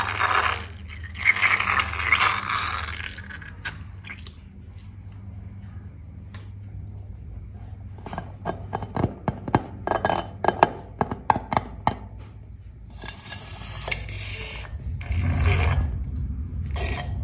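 Slime being squished and pressed by hand, with crackly squelching in the first few seconds and again near the end, and a quick run of sharp clicks and pops about halfway through.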